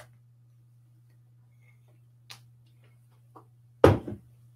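A few faint, sharp clicks over a steady low hum, then one loud knock with a short rattle near the end, as the person at the desk leans forward to handle the equipment.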